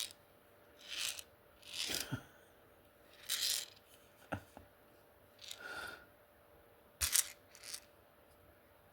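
Hand priming tool and brass being handled: a series of separate short clicks, scrapes and rustles, about seven in all, as a stuck primer jams the tool.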